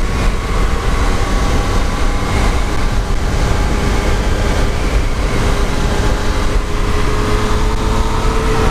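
Yamaha MT-09's inline-three engine running at a steady cruise at about 35 mph, its note drifting slightly lower, under a heavy rush of wind on the microphone.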